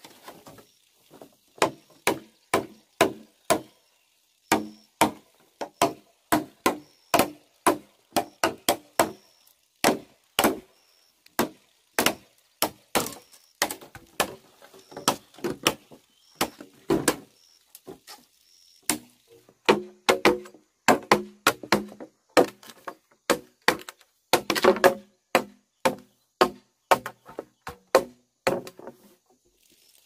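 A bush knife chopping green bamboo poles: a long run of sharp, irregular strikes at about one to two a second, each with a brief ring, coming thickest and loudest a little past the middle.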